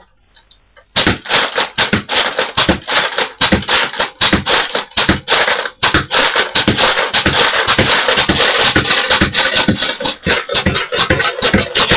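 Nerf Vulcan belt-fed dart blaster fired rapidly by hand, its cocking handle worked fast with the trigger held down. The result is a quick run of sharp plastic clacks and rattles, several a second, starting about a second in.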